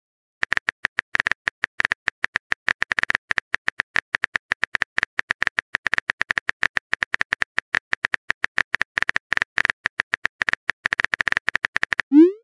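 Rapid, irregular phone-keyboard typing clicks from a texting-story app, one per typed character, about six to seven a second. Near the end the typing stops and a short rising send tone begins.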